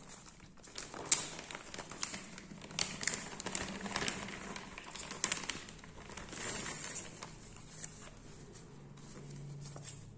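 Clear plastic packaging crinkling and rustling as it is handled and opened, with irregular sharp crackles, the loudest about a second in.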